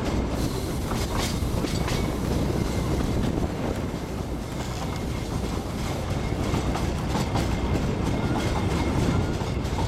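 Darjeeling Himalayan Railway 2 ft narrow-gauge passenger train running along the track, heard from a carriage window: a steady rumble with the wheels clicking over the rail joints now and then.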